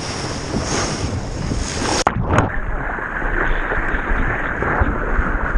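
Seawater sloshing and rushing against a waterproof action camera held at the ocean surface, a steady noisy rush. It breaks off abruptly about two seconds in and resumes duller.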